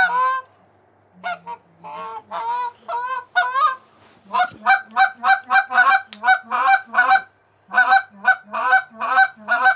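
Goose honking: a few separate honks, then from about four and a half seconds in a fast, even run of about four honks a second, a short break, and a second run.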